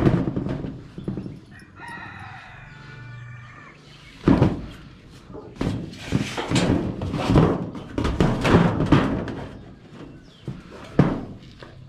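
A rooster crows once, one drawn-out call about two seconds in. It is followed by a run of irregular knocks and thumps, the loudest sounds here.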